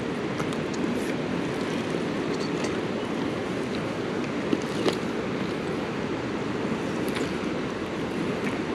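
A steady rushing noise with a few short sharp clicks, the sharpest about halfway through.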